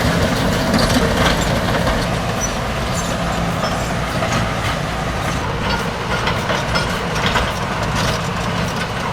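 Heavy bulldozer diesel engines running steadily under load, a low drone with clattering noise over it.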